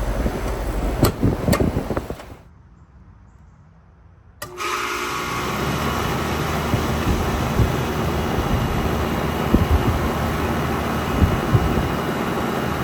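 Air conditioner outdoor unit running with a steady whir, with two sharp clicks about a second in. The sound drops to a faint background for about two seconds, then a unit starts abruptly: fan and compressor whir with a steady hum.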